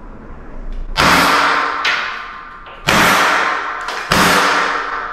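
Rossi Vesta .50 CO2 pistol firing three .50-calibre rubber balls, about a second in, near the middle and a second later. Each shot is a sharp report with a long echoing tail.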